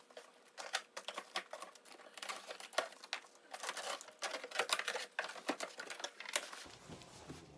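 Cardboard shipping box being opened by hand: the packing tape cut and the flaps pulled open, a quick irregular run of crackles, scrapes and taps.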